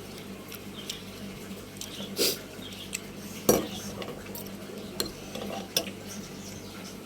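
Utensils clinking and scraping against a bowl in scattered, irregular knocks, the sharpest about three and a half seconds in.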